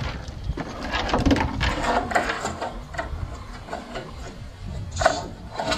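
Footsteps on wooden deck boards: an irregular run of clicks and creaks, with a sharper knock near the end.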